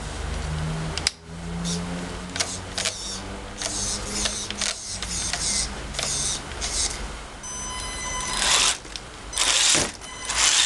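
Small electric motor and gearbox of an RC crawler whirring in repeated short bursts as the throttle is blipped, with a whine about three quarters of the way through.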